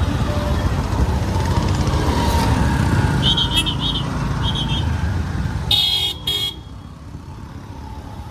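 Low steady rumble of a motorcycle ride through jammed traffic, with vehicle horns: a few short high beeps about three seconds in, then a louder double horn blast around six seconds in, after which the rumble eases.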